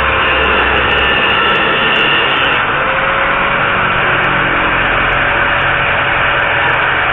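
Electric angle grinder with a cutting disc cutting into square metal tube for about the first two and a half seconds, then spinning on without load with a steady whine.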